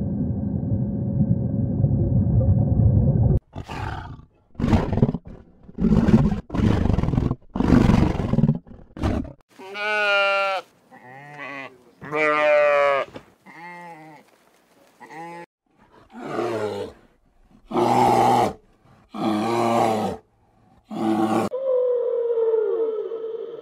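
A steady low rumble, cut off after about three seconds by a run of short, harsh animal calls. Then sheep bleat again and again, each bleat wavering in pitch, and near the end a whale call begins: a steady tone with falling glides.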